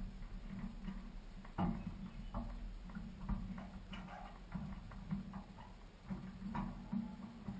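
Irregular knocks and clicks from a DHC-2 Beaver floatplane's float and cabin as a person climbs from the float into the cockpit, with the engine stopped. The sharpest knocks come about a second and a half in and near the end.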